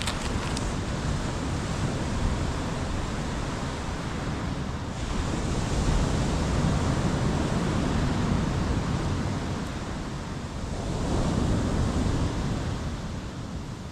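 Ocean surf washing onto the shore, swelling twice as waves come in, with wind on the microphone.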